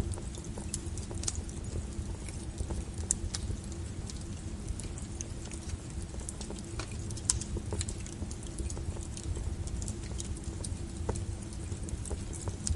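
Wood fire crackling: irregular sharp pops and snaps over a low, steady rumble of flames, with one louder pop about seven seconds in.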